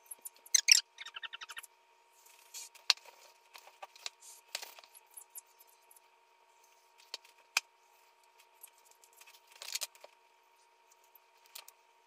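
Dry-erase marker writing on a whiteboard: short scratchy strokes in bursts separated by pauses, with sharp clicks of the marker tapping and being set down on the board.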